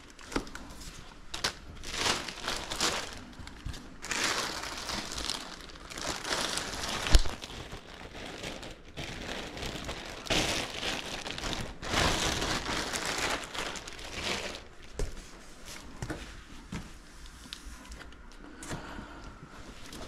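Plastic packing bag rustling and crinkling in uneven bursts as it is handled and wrapped around a foam model-jet wing, with one sharp knock about seven seconds in.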